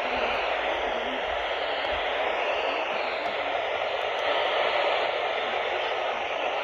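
Steady hiss of radio static from a radio receiver.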